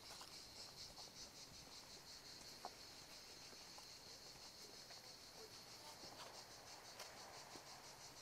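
Faint, high-pitched insect chirping in a steady pulsing rhythm of several pulses a second, with a few faint clicks, one sharper tap about two and a half seconds in.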